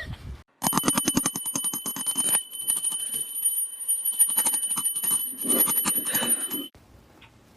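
A small jingle bell shaken rapidly, jingling steadily for about six seconds and thinning briefly about two and a half seconds in.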